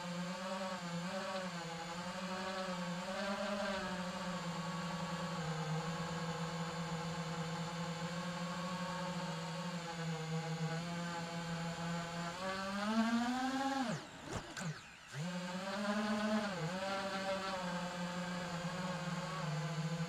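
Motors and propellers of an iFlight Titan DC5 FPV quadcopter whining steadily, the pitch rising and dipping with throttle. About thirteen seconds in, the pitch climbs, then the sound nearly cuts out for about a second as the throttle is chopped, before the motors spool back up.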